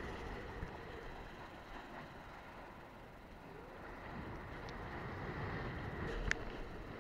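Steady rush of water and wind as a kiteboard planes across choppy sea, picked up by a camera strapped to the rider, with a single sharp click about six seconds in.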